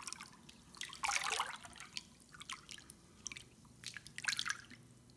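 A hand swishing and splashing through bathwater in a tub, with drips and small splashes; the biggest splashes come about a second in and again around four seconds.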